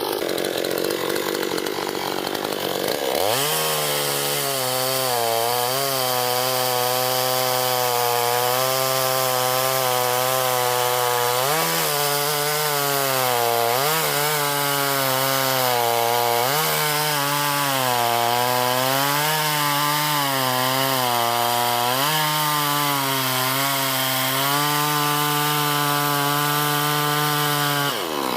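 Chainsaw cutting through wood. Its pitch falls as the chain bites, about three seconds in, then holds steady under load, sagging briefly several times.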